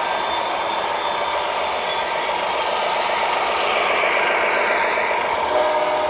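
Electric model passenger train running past close by, its wheels rattling on the metal track under a steady motor hum, slightly louder as the cars pass nearest.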